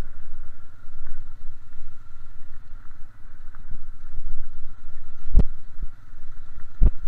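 Small Honda ATV running at low speed while towing, under a steady low rumble of rolling over a gravel track. Two sharp knocks come in the second half, about a second and a half apart.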